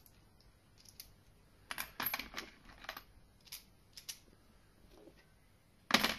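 Small steel banjo bolts and fittings clicking and clinking against each other and the plastic as a hand sorts through a parts box. The light clicks are scattered, with a cluster about two seconds in and one sharper, louder knock near the end.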